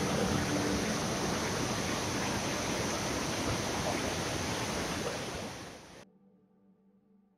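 Whitewater of a flooded river rushing over the brink of a waterfall, a steady rush that fades out about six seconds in.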